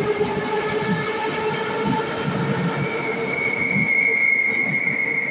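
A Moscow Metro train in cream-and-brown retro livery running out of the station, its traction motors giving a steady whine in several tones over the rumble and clatter of the wheels. A high-pitched whine grows louder about three seconds in as the last car goes by.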